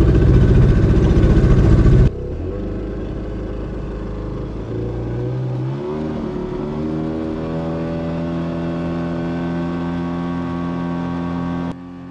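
Outboard motor of a boat running: loud at first, then after a sudden cut a steadier engine drone whose pitch rises about halfway through as it speeds up, then holds. It drops abruptly again near the end.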